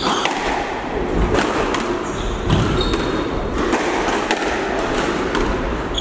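A squash rally: the hard rubber ball is struck by rackets and hits the court walls in a quick, uneven series of sharp smacks, roughly one or two a second, over steady background noise.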